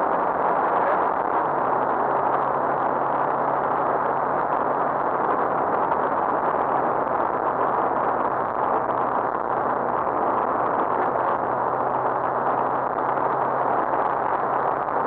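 A rally car at speed heard from inside its cabin: a loud, steady din of engine, tyre and wind noise, with a faint engine tone held at nearly constant revs.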